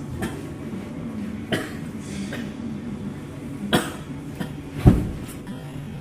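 A person coughing: several short, sharp coughs at irregular intervals, over a steady low hum.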